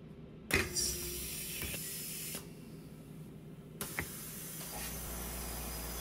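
Compressed air hissing from the INJEKTO 2.0's pneumatic injection cylinder as its buttons are pressed while plastic is forced into a 3D-printed mold: a sharp burst about half a second in, a steady hiss for about two seconds, then a click and another steady hiss from about four seconds in.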